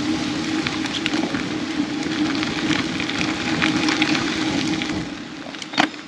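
Bicycle tyres rolling over a gravel path, a steady crunching crackle from the surface. It eases about five seconds in, followed by a couple of sharp clicks.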